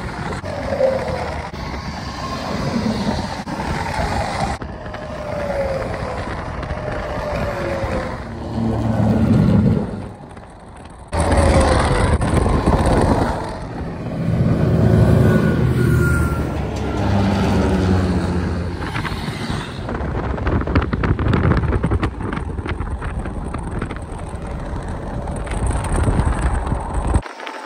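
Highway traffic passing close by: diesel semi-trucks and cars going past one after another, engine and tyre noise swelling and fading with each pass, some engine notes falling in pitch as they go by. The sound drops away briefly about ten seconds in, then comes back loud all at once.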